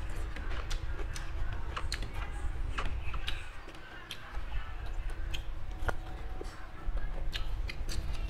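Close-up eating sounds of a person chewing fried milkfish and rice: irregular wet mouth clicks and lip smacks, with a faint steady hum underneath.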